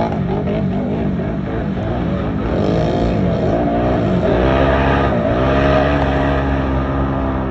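Off-road race vehicle's engine revving up and down several times, then holding a steady pitch near the end.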